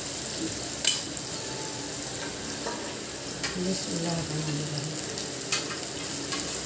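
Chopped onions frying in hot oil in a steel pan: a steady sizzle, with a spoon stirring and a sharp clink about a second in.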